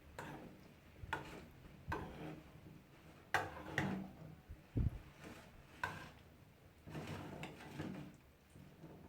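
Spoon scraping and knocking against a mixing bowl as potato salad with mayonnaise is stirred: irregular clinks about once a second, with one heavier low thump about halfway through.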